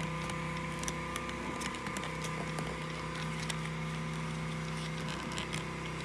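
Faint scattered plastic clicks and handling noises as a camera's battery door is worked closed over a DC-adapter cable, over a steady electrical hum.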